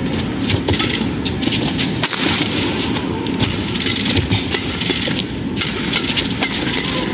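Badminton rally: racket strikes on the shuttlecock and many quick sharp clicks over a steady crowd din.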